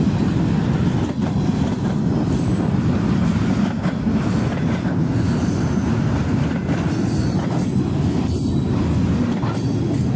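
Freight train of loaded flatcars rolling past close by: a steady, loud rumble of steel wheels on the rails, with faint high wheel squeals now and then.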